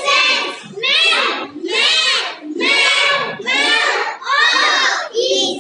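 A group of young kindergarten children chanting loudly together in unison, in short phrases of just under a second each, about one a second.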